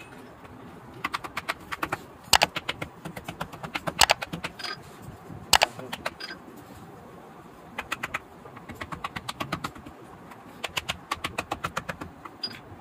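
Small cobbler's hammer tapping the leather upper of a Peshawari chappal against its sole on a stone block, in quick runs of light taps separated by short pauses.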